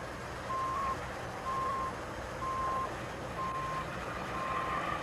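A vehicle's reversing alarm beeping, one steady high tone about once a second, five beeps in all, over a steady background noise.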